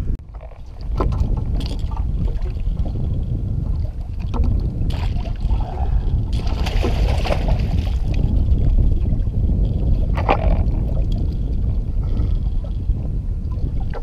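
A hooked catfish thrashing and splashing at the water's surface beside the boat, loudest about six to seven seconds in, with a few sharp knocks against a steady low rumble.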